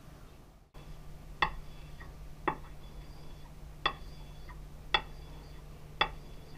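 A small metal part clicking against the sandpapered plate as it is worked by hand: five sharp clicks about a second apart, each with a brief ring.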